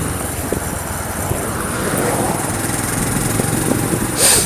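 Small motorbike engine running while riding along a city road, with road and wind noise. A short loud rush of hiss comes near the end.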